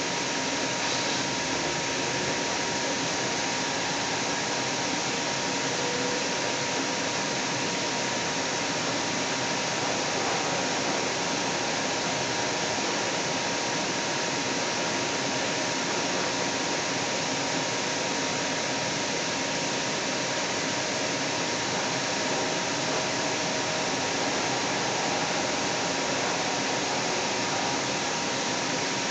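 Steady running noise inside a Seattle Link light rail car in motion between stations, an even whoosh of wheels, motors and ventilation with a faint steady whine.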